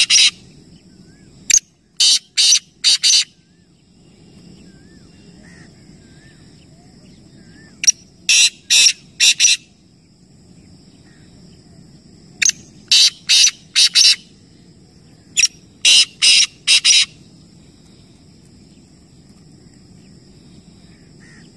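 Black francolin (kala teetar) calling: four phrases of four or five short, loud notes each, spaced a few seconds apart.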